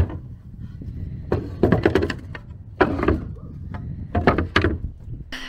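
A sharp knock, then three short bursts of clattering knocks and thuds about a second apart, as hard objects are handled and bumped.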